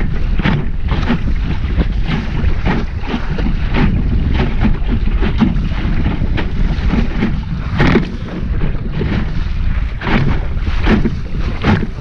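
Wind buffeting the microphone aboard a small sailing dinghy, a loud steady rumble, with water slapping and splashing against the hull in quick, irregular splashes as the boat sails through chop.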